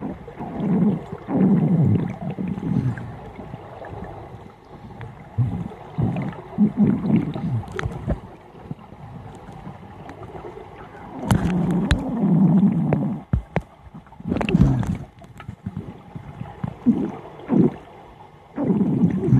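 Scuba divers' regulator exhalations heard underwater: low bubbling bursts of one to two seconds, repeating every few seconds as the divers breathe, with scattered small clicks between them.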